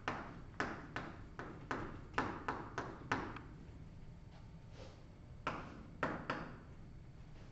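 Chalk striking and tapping on a chalkboard as words are written: a quick run of sharp ticks for about three seconds, a pause, then three more about two-thirds of the way through.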